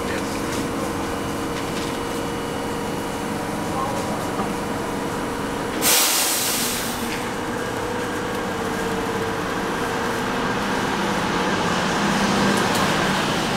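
R42 subway train standing with its doors open, its onboard equipment humming steadily. About six seconds in, a sharp hiss of compressed air is let out and lasts about a second.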